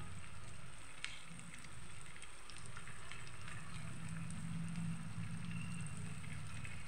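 Batter-coated paneer cubes deep-frying in hot oil: a steady sizzle with scattered crackles and one sharper pop about a second in.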